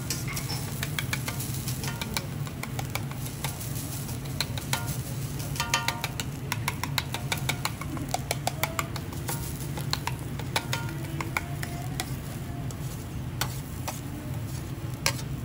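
Metal teppanyaki spatula scraping and tapping on a steel griddle, pushing and scooping chopped garlic as it fries. There are many sharp clicks, some ringing briefly, over a steady low hum.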